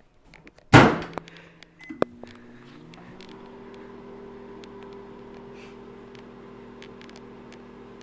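Microwave oven door shut with a bang, a short keypad beep and a click, then the oven starts running: a steady hum that rises in pitch over about a second and then holds.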